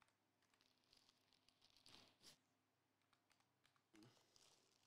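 Near silence: room tone, with a few faint clicks about two seconds in.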